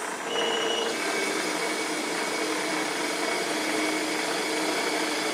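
Benchtop metal lathe running, turning a steel toolpost stud while a narrow parting tool cuts it down in a deep groove. A steady whirring with faint whine tones, a little louder from about a third of a second in.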